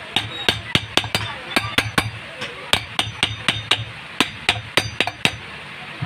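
Light hammer taps on the metal end cover of a ceiling fan motor, seating the cover onto the motor body. Sharp metallic knocks, each with a short ring, come about four a second in runs with brief pauses between.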